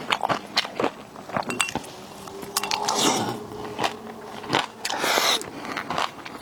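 Close-miked eating of raw seafood: wet chewing and crunching with many sharp clicks and snaps, and two longer rushing, slurping-like swells about three and five seconds in.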